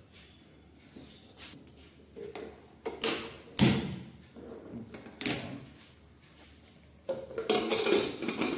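Aluminium pressure cooker lid being fitted and closed: a few sharp metal knocks and clanks, then a scraping rattle near the end as the lid is seated and its handle locked.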